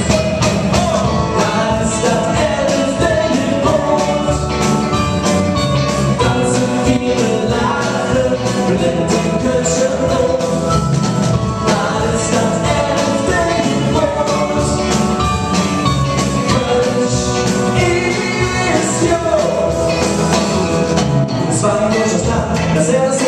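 Live rock band playing a song with a steady beat: male lead vocals over electric guitar, bass guitar, keyboard and a drum kit.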